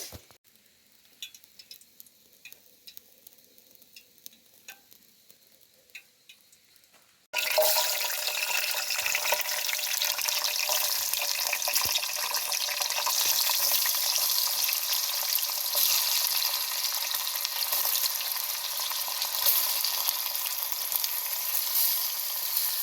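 A few faint clicks over near-quiet, then about seven seconds in a sudden start of loud, steady sizzling: chicken frying in hot oil in a cooking pot.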